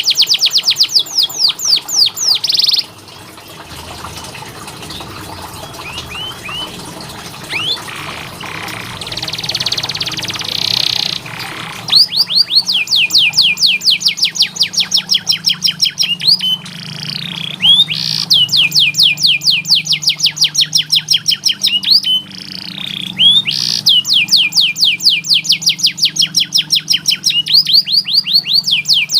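Domestic canary singing long rolling trills of fast repeated high notes, about ten a second, each run lasting several seconds. After the first trill comes a quieter stretch of scattered chirps and a short buzzy phrase, and then the long trills return.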